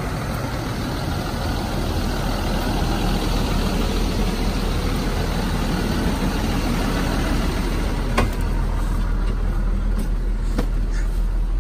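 Snap-on tool truck (a step van) engine idling steadily, with two sharp knocks about eight and ten and a half seconds in.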